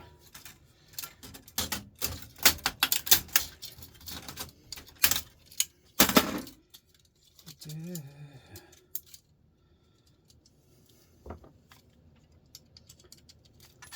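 Rapid clicking and clattering of plastic and metal printer parts being pried and pulled apart by hand, a run of sharp knocks for the first several seconds, then mostly quiet with one more knock later on.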